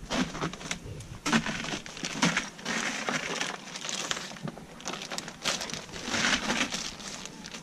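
Footsteps crunching on icy snow, an irregular string of crunches and crackles.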